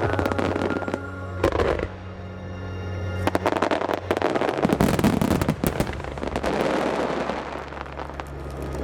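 Fireworks shells bursting and crackling in rapid succession, with a short lull a couple of seconds in and then a dense run of crackling bursts. Music with sustained low notes plays underneath.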